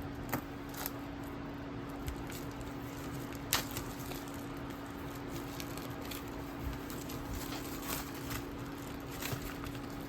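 Scattered light clicks, taps and crinkles of packaging and books being handled, with one sharper tap about three and a half seconds in, over a steady low hum.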